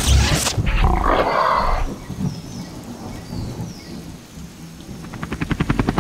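A deep, loud rumble with a noisy burst for about the first two seconds, then dying down. About five seconds in, the rapid, even chop of a helicopter rotor sound effect begins.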